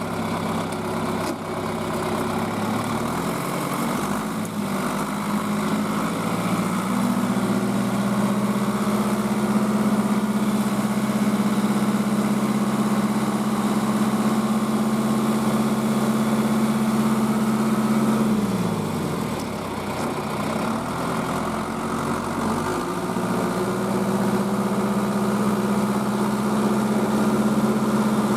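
Motor vehicle engine running steadily, speeding up a few seconds in, holding an even pitch, then slowing briefly and speeding up again near the end, as when driving.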